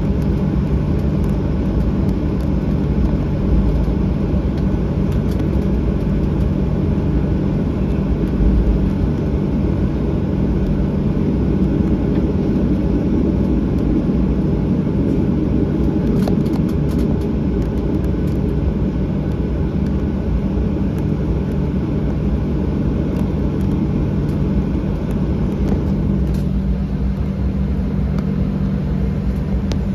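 Cabin noise of a Boeing 737-800 taxiing, its CFM56-7B turbofan engines at low taxi thrust: a steady low hum over a constant rumble.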